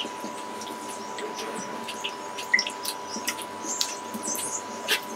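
Peeled hog plums being rubbed and turned by hand in a glass bowl of water: irregular small splashes and sloshing, with a faint steady tone underneath.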